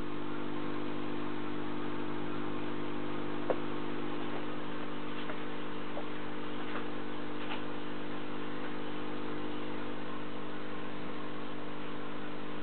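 Steady hum of an aquarium air pump feeding an air stone, an even drone with a light hiss of bubbling over it. There is one faint tap about three and a half seconds in.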